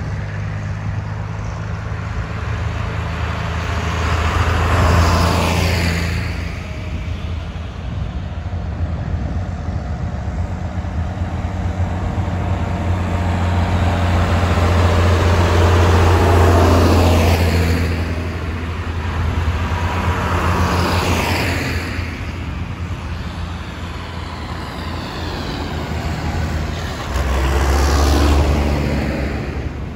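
A procession of diesel farm tractors, John Deere tractors and a JCB Fastrac among them, driving past one after another. Their engines give a steady low drone, and the sound swells and falls away four times as individual tractors pass close.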